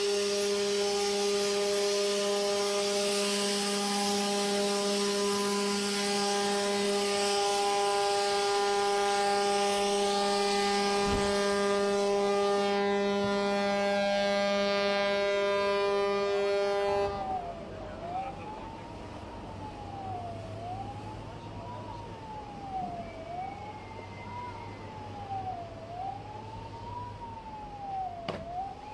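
A long, steady, loud blast at one pitch sounds over a rush of water as the ship slides into the sea. About seventeen seconds in it cuts off, and a wailing siren follows, rising and falling about every two seconds.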